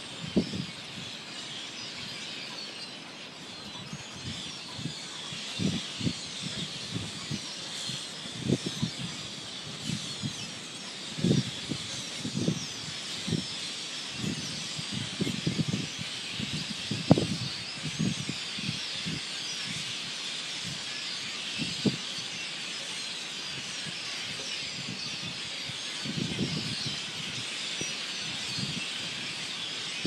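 A large flock of dark birds calling all together in a dense, continuous chorus of squeaky chirps, with irregular low thumps under it.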